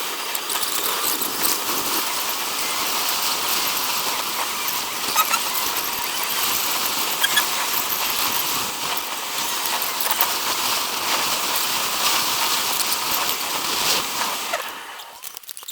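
Steady high hiss of road and wind noise from a moving car, with scattered small clicks, fading out near the end.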